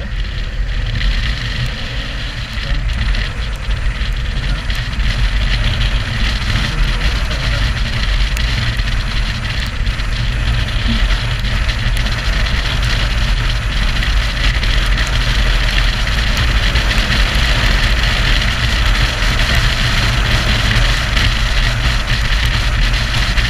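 Motorcycle riding along a road, heard from the rider's helmet: rushing wind and engine noise with a heavy low rumble. It grows louder over the first several seconds as the bike picks up speed, then holds steady.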